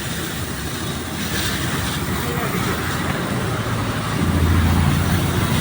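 High-pressure washer with a triple-piston pump and 2 hp electric motor running steadily; about four seconds in it gets louder, with a deeper hum.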